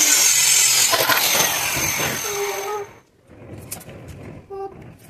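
Small handheld electric circular saw cutting through plywood: a loud, high-pitched whine mixed with the noise of the cut. It stops abruptly about three seconds in.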